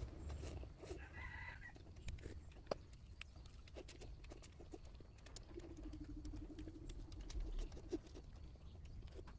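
Instant noodles being slurped and chewed, a run of small wet clicks. A chicken clucks in the background about a second in.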